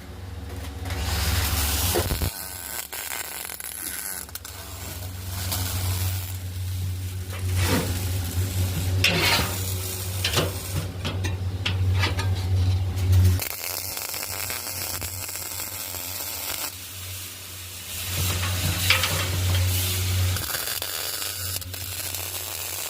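MIG welder arc crackling and sizzling over a low hum while welding the metal parts of a grill, in one long run of about 13 seconds, then a shorter run a few seconds later.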